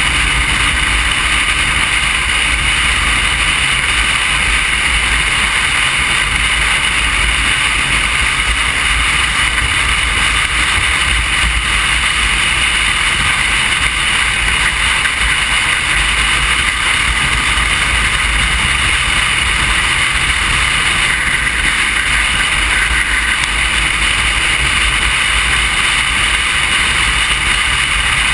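Steady wind rush on the microphone of a camera mounted on a moving motorcycle, over the motorcycle's engine and road noise.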